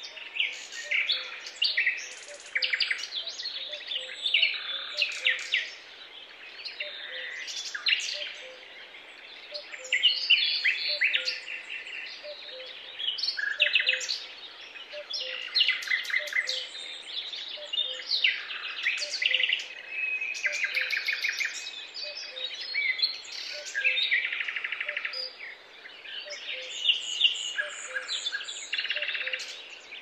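Daytime woodland birdsong: several songbirds singing and calling at once in overlapping chirps and rapid trills, over a faint steady hiss. A faint low note repeats about once a second beneath them.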